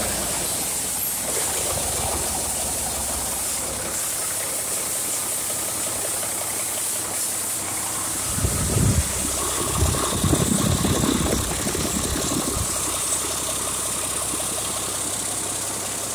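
Caterpillar 3306 turbocharged 10.5-litre six-cylinder diesel engine running steadily on a test run, with a constant high whine over the engine noise. A few louder low rumbles come in about halfway through.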